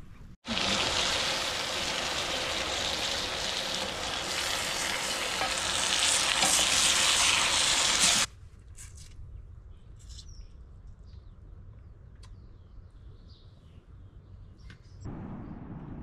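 Potatoes, onions and meat sizzling loudly in a cast-iron frying pan while being stirred with a metal spoon; the sizzle cuts off abruptly about eight seconds in. After it, only faint outdoor sound with a few short high chirps.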